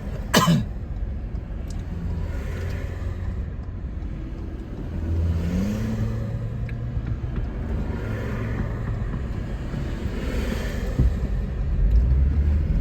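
Car engine and road noise heard from inside the moving vehicle, a steady low hum whose pitch rises about five seconds in as it speeds up.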